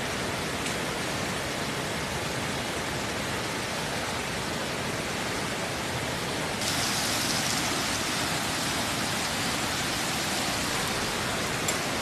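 Steady rushing water noise, with a brighter hiss joining suddenly a little past halfway and holding on.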